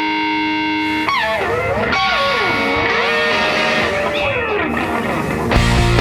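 Electric guitar music: a held chord, then sliding and bending notes, with heavy bass and drums coming in near the end.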